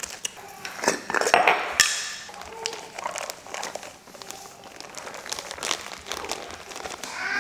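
Plastic bag crinkling and rustling as cayenne pepper is poured from it into a glass jar, with many short, sharp clicks and taps.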